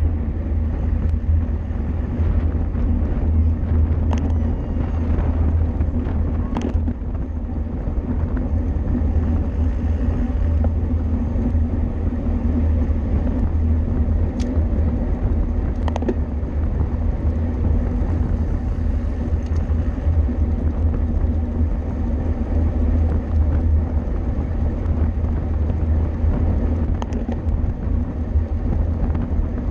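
Steady low wind rumble on the microphone and road noise from a bicycle moving at race speed, with a few faint clicks.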